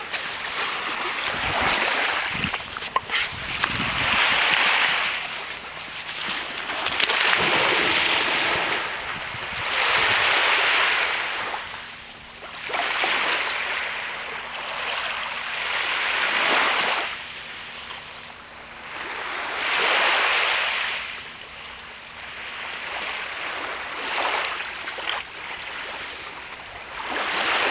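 Small waves breaking and washing up onto a sandy beach, the rush of surf swelling and fading every few seconds.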